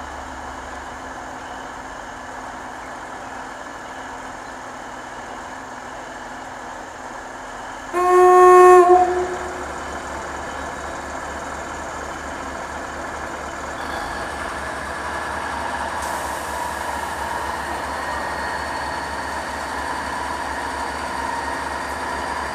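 Diesel railcar at a station: a single horn blast about a second long comes about eight seconds in. After that the diesel engine runs steadily louder from about fourteen seconds on.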